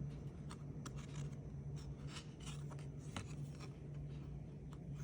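Trading cards sliding and rubbing against each other as a stack is flipped through by hand: a series of short, soft scrapes, over a low steady hum.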